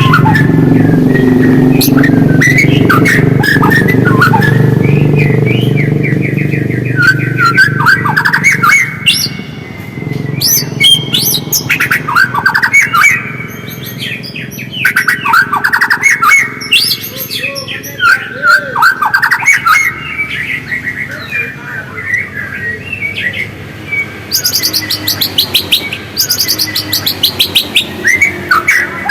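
White-rumped shama (murai batu) singing: varied whistled phrases with gliding notes and rapid chattering trills, and a fast run of high repeated notes near the end. A low steady rumble sits under the song for the first third.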